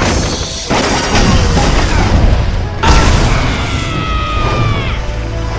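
Animated-series battle sound effects: a loud blast about a second in and another about three seconds in, over a background music score. After the second blast comes a falling high-pitched screech.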